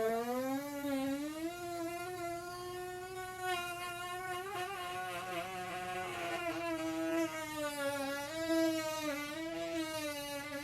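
One long, unbroken buzzing fart sound on a slightly wavering pitch.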